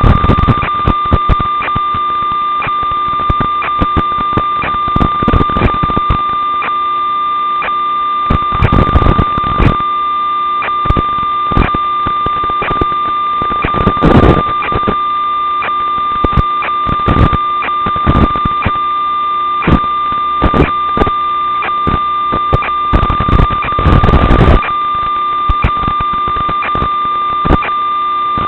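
Vortex 250 Pro racing quadcopter's FPV video-link audio: a steady, high electronic whine with frequent bursts of crackling static, in thin, telephone-like sound.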